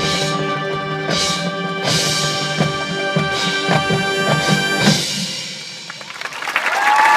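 Marching band hornline playing loud sustained brass chords over low drum hits, cutting off together about five seconds in and ringing away. Near the end the crowd starts cheering and applauding, with a whistle.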